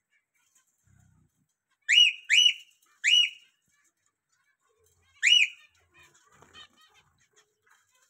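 Zebra finches calling: three short, loud calls in quick succession about two seconds in, and one more a couple of seconds later, each rising then dipping in pitch. Softer chattering follows near the end.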